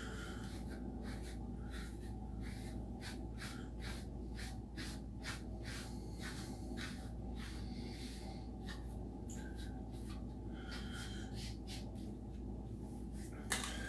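A brush being drawn through wet hair in repeated short, scratchy strokes, two or three a second, over a steady low hum. There is a sharp click near the end.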